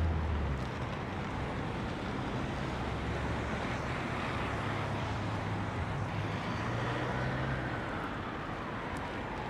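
Road traffic on a busy city street: car and bus engines running past, with one vehicle close by fading away in the first second.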